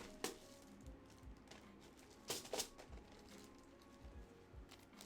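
A few light, sharp taps and clicks from small objects being handled: one about a quarter second in and two close together about two and a half seconds in, over faint steady background tones.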